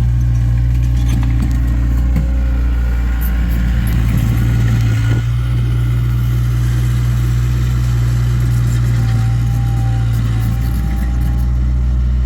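Takeuchi TL26 compact track loader's diesel engine running steadily while the machine works, with a few light clicks and knocks in the first couple of seconds.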